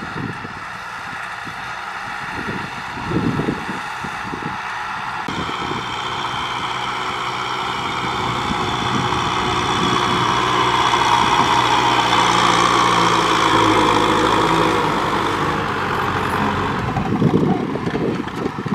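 Kubota M6040SU tractor's diesel engine running steadily under load as it pulls a rotary tiller through dry soil. It grows louder toward the middle as the tractor comes close, then eases off.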